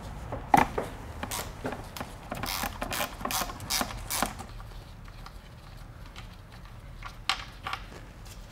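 Ratchet wrench with an 8 mm Allen socket loosening the fill plug on a ZF6HP26 automatic transmission case: a run of irregular ratchet clicks and tool clinks over the first few seconds, then two more near the end.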